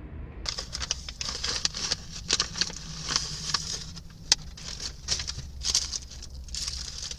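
Paper sandwich wrapper rustling and crinkling in irregular bursts as a fried chicken sandwich is unwrapped, with one sharp click about four seconds in. A low steady hum runs underneath.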